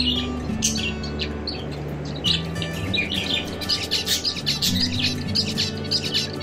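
Small cage finches chirping, many short high calls that come thicker and faster through the second half, over background music with sustained low notes.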